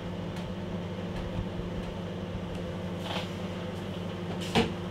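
A steady low hum with several even pitched lines, with a single sharp knock about four and a half seconds in.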